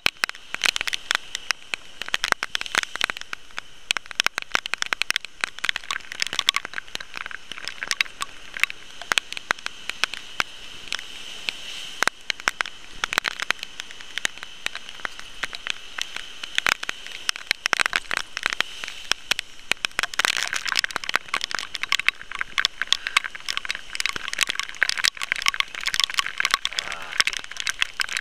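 Dense, irregular crackling and clicking with a faint steady whine underneath: handling and rubbing noise on a body-worn camera's microphone as a spinning rod and reel are worked.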